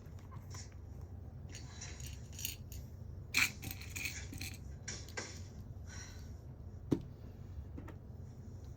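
Light clinking and clattering of small hard objects being handled, with two sharper knocks, one about three and a half seconds in and one about seven seconds in, over a low steady hum.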